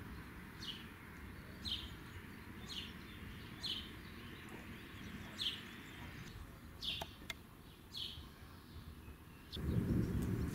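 A bird calling over and over, with short, high, falling chirps about once a second. About a second before the end, a louder low rumbling noise sets in.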